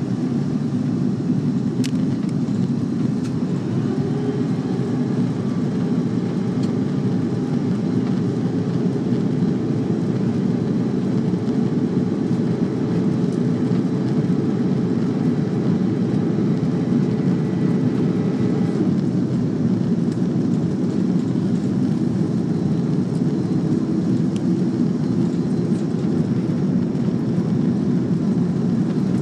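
Steady low roar of jet engines and rushing air inside an airliner cabin, descending to land with flaps extended. A faint higher whine runs under it from a few seconds in until about two-thirds of the way through, then stops.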